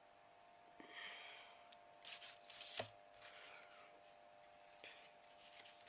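Near silence: a few faint rustles and one light tap from hands handling a small canvas while a glued flap is held to set, over a faint steady hum.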